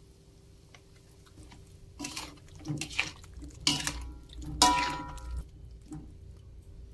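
Metal spatula scraping and knocking against a wok while stirring meatballs in a thin sauce: a string of irregular scrapes and clinks, one or two ringing briefly, starting about two seconds in.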